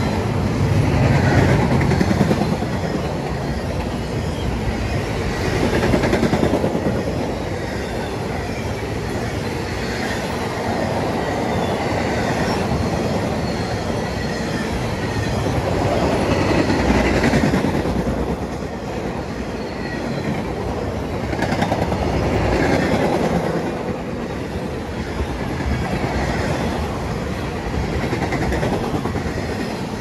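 CSX Q009 intermodal freight train, loaded with trailers on flatcars and double-stack containers, rolling past close by. The steel wheels rumble on the rails in a steady noise that swells and fades every few seconds as the cars go by.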